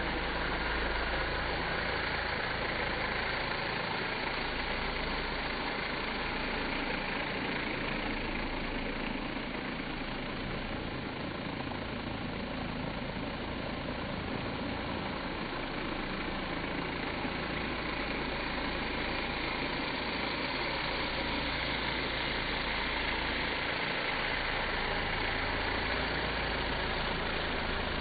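Ryobi 2300 PSI electric pressure washer spraying through a turbo nozzle onto vinyl siding: a steady rushing spray over a low motor drone. The sound is slowed down along with the slow-motion footage, so it comes across deep and dull.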